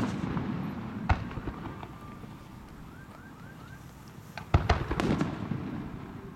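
Aerial firework shells bursting: a boom at the start, a sharp crack about a second in, and a second boom with crackles about four and a half seconds in. Each fades away over a second or so.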